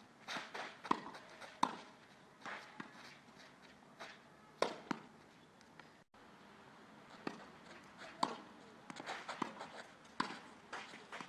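Tennis balls being struck by rackets and bouncing on the court: sharp, irregular pops, a second or more apart, with lighter knocks and shuffling steps between them.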